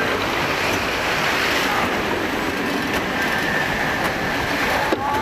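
Jetski-themed amusement ride heard from on board: a steady rush of wind and running ride noise as the vehicle moves along its track, with a faint high squeal in the middle.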